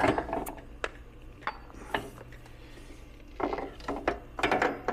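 Scattered metal clinks and knocks as a Ural sidecar motorcycle's front wheel axle is bumped through the hub with a wrench and worked out by hand, in small clusters of taps.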